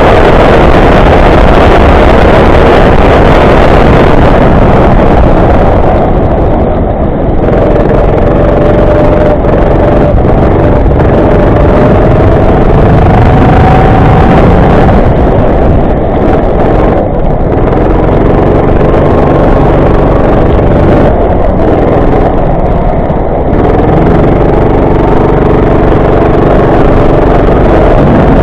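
Go-kart engine running hard, its note dipping and climbing again several times, under a steady rushing noise.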